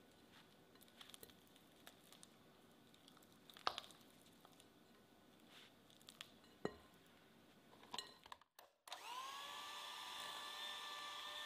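A silicone spatula scraping soft butter around a glass bowl, with faint scrapes and a few sharper taps. About nine seconds in, after a brief silence, a Philips electric hand mixer starts, its pitch rising for a moment before it runs steadily as it beats the butter.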